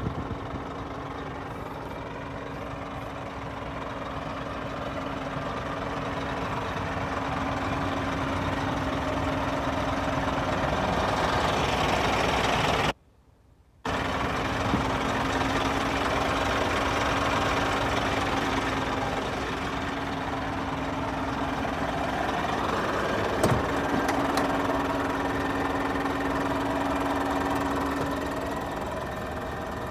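Diesel engine idling steadily with a constant hum. The sound drops out to near silence for about a second near the middle, and a couple of short clicks come later.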